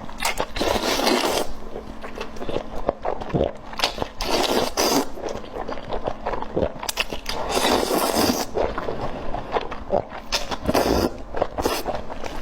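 Close-miked biting and chewing of spicy beef tendon, wet and crackling, coming in irregular bursts.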